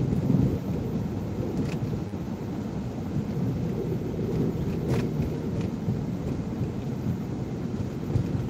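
Steady low rumble of a car being driven, heard from inside the cabin: engine and tyre noise. A faint click comes about five seconds in.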